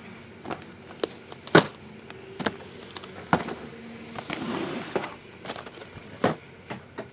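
Cardboard trading-card boxes being handled and set down on a table: scattered light knocks and taps, the loudest about a second and a half in, with a brief scraping slide near the middle.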